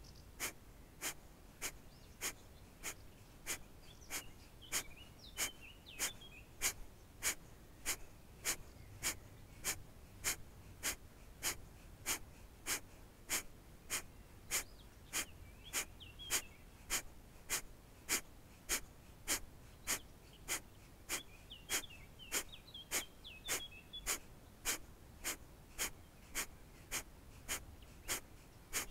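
Kapalabhati breathing: short, forceful exhalations through the nose at an even pace of about two a second, each puff pushed out actively by the belly while the in-breath between is passive and barely heard. Faint birdsong chirps now and then behind the breaths.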